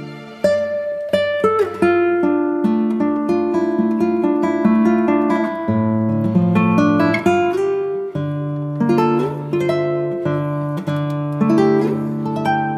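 Background music on acoustic guitar: a run of plucked notes over held low notes.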